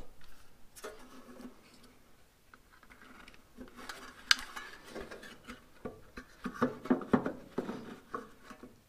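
Handling noises as a glass halogen headlight unit is fitted and seated in a truck's headlight housing: scattered light clicks and rubbing, with one sharper click about four seconds in. The first few seconds are nearly silent.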